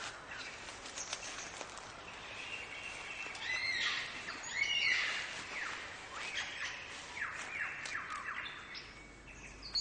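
Forest birdsong: a run of whistled notes and quick downward-sweeping calls, loudest about halfway through, over a steady background hiss.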